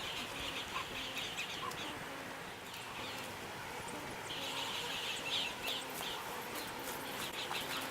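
Honeybees humming faintly around an open hive, with bird calls chirping in the background in two clusters, near the start and again about halfway through.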